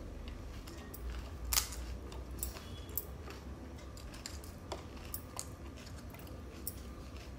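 Crisp, hollow puri shells cracking as a thumb pokes holes in their tops for filling: several sharp crackles, the loudest about one and a half seconds in.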